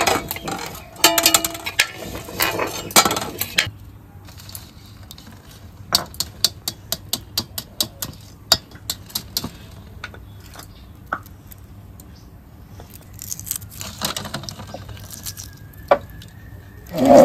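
Hard-boiled eggs and a steel ladle clattering against a steel pot for the first few seconds, then a run of quick light taps, about three or four a second, as an egg's shell is cracked against the rim of a steel bowl.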